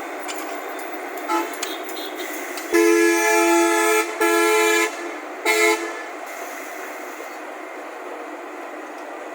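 Vehicle horn honking in a run of blasts: a faint short toot, then a long blast, a shorter one and a final short toot, over steady background noise.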